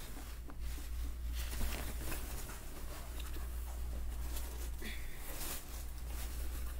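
Fabric rustling as a shirt is pulled out of a box, unfolded and shaken open by hand: irregular crinkling and swishing, over a steady low hum.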